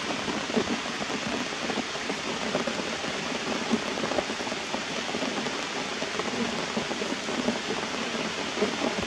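Steady rain falling on leaves and rocks: a constant hiss with a light, irregular patter of drops.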